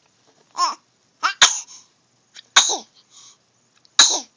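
A baby's short squeal, then three sharp sneezes about a second and a quarter apart, each starting suddenly and trailing off in a squeaky falling voice.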